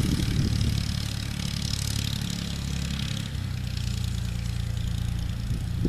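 Fiat farm tractor's diesel engine running steadily, heard from a distance as a low, even drone, its note shifting slightly about three seconds in.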